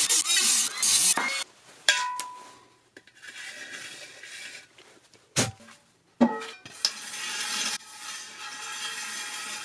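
Dremel rotary tool with a cut-off wheel grinding into the thin metal lid of a pony keg for about the first second, then stopping abruptly. A few sharp metallic clinks and knocks on the keg follow, one ringing briefly.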